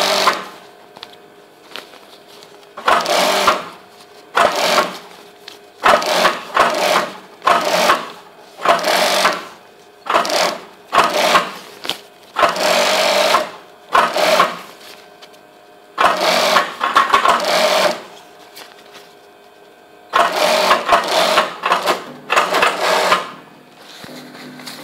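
Juki industrial sewing machine stitching in short runs of a second or two, stopping and starting about a dozen times as the fabric is guided through.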